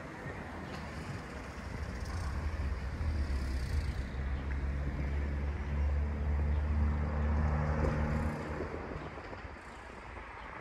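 A vehicle engine's low, steady hum that grows louder about two seconds in and fades away near the end.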